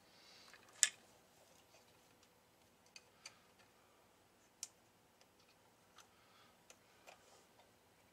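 Sparse small clicks and taps from a soldering iron and fingers working on a transistor amplifier circuit board, the loudest about a second in.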